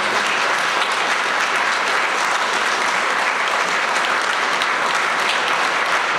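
Audience applauding: dense, steady clapping from a large seated crowd.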